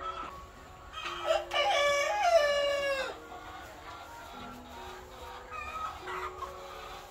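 A rooster crows once about a second in: one loud crow of about two seconds that drops in pitch at the end. Fainter chicken calls follow.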